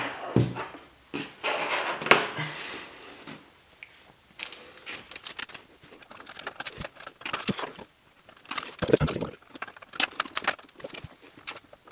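Irregular clicks, knocks and scrapes of a PC case being tipped onto its side and handled while screws are fitted to mount an SSD, with a few louder knocks near the end.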